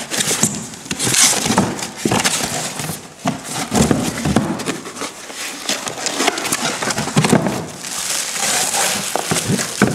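Unpacking by hand: cardboard box flaps knocking and scraping, with plastic wrapping rustling and crinkling in irregular bursts.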